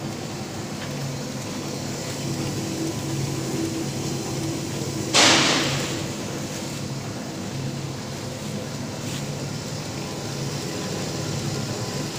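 Plastic film slitting-rewinding machine running with a steady hum. About five seconds in, a sudden loud burst of noise cuts in and dies away within a second.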